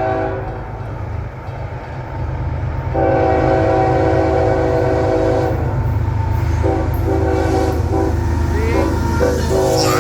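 A Nathan K5HL five-chime locomotive air horn sounding its chord in a horn show. One blast cuts off about half a second in, a long blast starts about three seconds in, and a string of short choppy blasts follows near the end. A loud, steady low rumble from the train's engines runs underneath.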